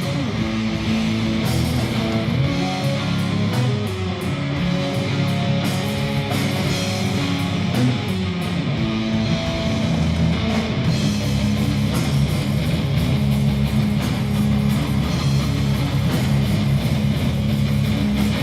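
Live rock band playing an instrumental passage: loud electric guitar with bass and drums, with cymbal hits most prominent in the first half.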